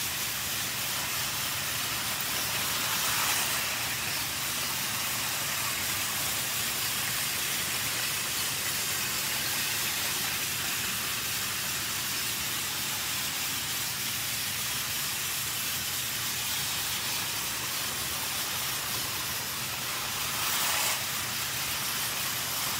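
Steady hiss with the faint running of a battery-powered Thomas toy engine on plastic track. The hiss does not change as the engine moves away, and it swells briefly about three seconds in and again near the end.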